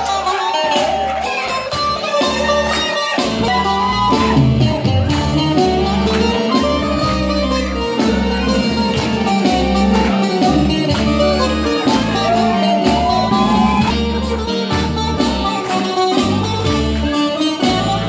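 Zeibekiko dance music in its slow 9/8 rhythm, led by a plucked string instrument over a steady bass beat.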